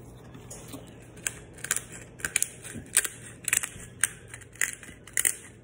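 Hand-twisted pepper grinder grinding peppercorns in short, gritty crunching strokes, about two a second, starting about a second in.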